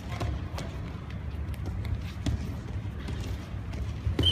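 Wrestlers' feet scuffing and thudding on a foam wrestling mat as they grapple, with repeated low thumps and short knocks. A steady high tone begins right at the very end.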